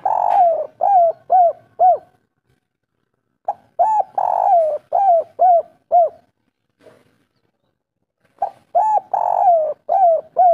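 Spotted dove (tekukur) singing its 'kuk 3' coo: three phrases about four and a half seconds apart. Each phrase is a long drawn coo followed by a few short, falling coos.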